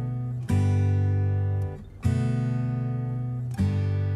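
Background music: acoustic guitar strumming chords, one about every second and a half, each left to ring and fade.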